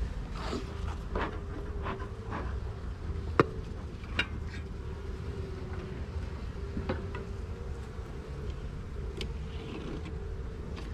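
Honeybees buzzing over an opened hive, a steady hum that wavers slightly in pitch. A few sharp knocks cut in, the loudest about three and a half seconds in.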